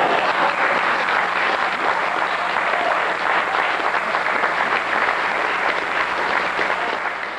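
A roomful of people applauding, a dense, steady clatter of clapping that tapers off a little near the end.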